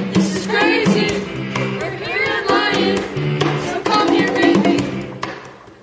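Upbeat pop backing track with a steady drum beat and a bouncing bass line, with short sung phrases over it. It fades down near the end.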